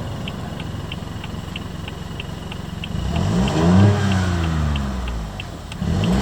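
BMW B38A15 1.5-litre turbocharged three-cylinder engine idling with a light ticking about three times a second, then revved once about halfway through, the pitch rising and falling back to idle, with a second rev starting near the end.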